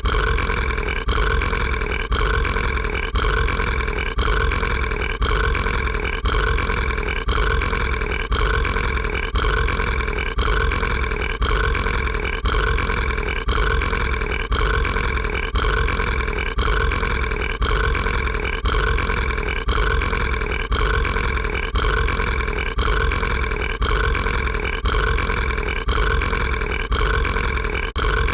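Cartoon monster's burp, a short sound clip looped over and over, restarting about once a second without a break.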